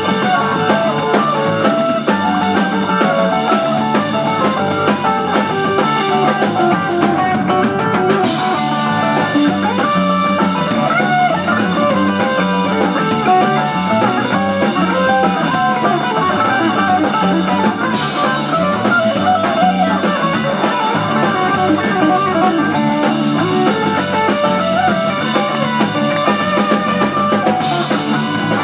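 Live rock band playing an instrumental: electric guitar, drum kit, bass, piano and Hammond B-3 organ together, with three crash-cymbal hits about ten seconds apart.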